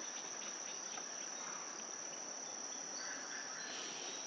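Insects trilling in a steady, high-pitched drone over faint background noise.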